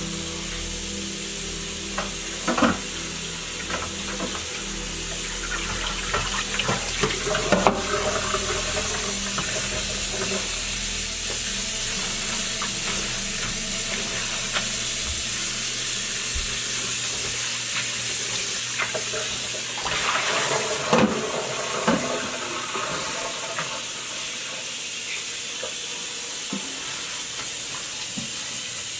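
Kitchen tap running steadily into a stainless steel sink while leafy greens are rinsed and swished by hand in a bowl. A few knocks and clatters come through, loudest about 20 seconds in.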